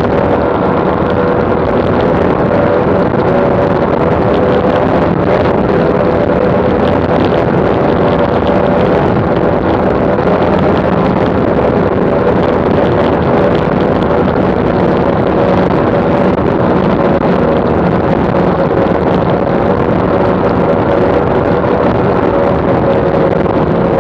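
Twin Mercury OptiMax 300XS two-stroke V6 outboards running steadily at high speed, about 110 km/h, a loud even engine drone with the rush of wind and spray over the boat.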